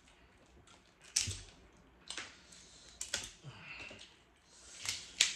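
Boiled crab and crawfish shells being cracked and picked apart by hand: an irregular scatter of sharp cracks and clicks, the loudest near the end.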